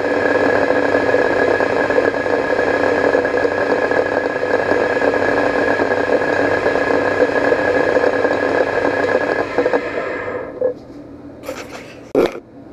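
Prototrak lathe spindle running, with the locking collar of the Jacobs rubber-flex collet chuck rattling as it spins. About ten and a half seconds in the spindle winds down and stops, and then come two short clatters.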